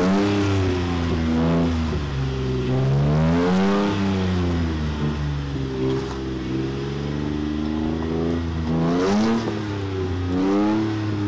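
Toyota Tacoma pickup's engine revving up and down over and over as the truck crawls over rocks, its pitch climbing and dropping several times under throttle.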